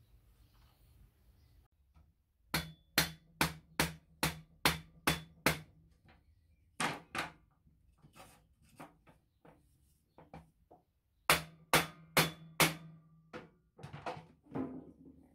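Rubber mallet striking a wooden block that rests on a steel plate: a run of about eight firm blows at two or three a second, two more, then a pause and four more, with lighter taps in between.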